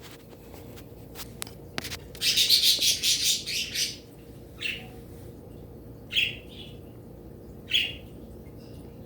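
Small birds chirping: a rapid burst of high chatter about two seconds in, then a few single chirps.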